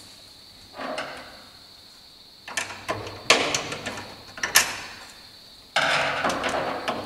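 Plastic clicks, knocks and scrapes as the sampling module of a VESDA-E smoke detector is worked loose and slid out of its housing. There is a short rub about a second in, a run of sharp clicks in the middle, and a longer scraping near the end.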